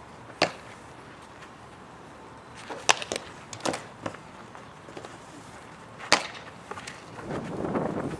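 Sharp cracks of a softball being hit with a bat and smacking into a leather fielding glove in ground-ball practice, a handful of single knocks a second or more apart. Near the end there is a rough rustling noise.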